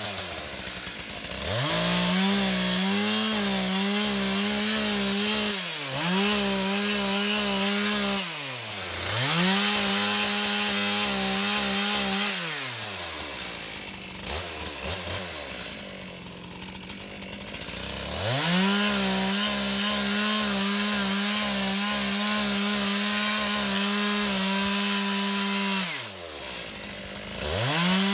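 Stihl chainsaw cutting up an ice-covered fallen branch. It revs to full throttle for cuts of a few seconds at a time and drops back toward idle between them, with a longer stretch at low speed in the middle.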